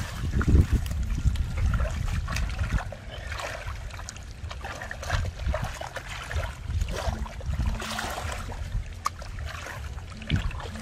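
Hands sloshing and squelching in shallow muddy water, digging through the mud in irregular splashes.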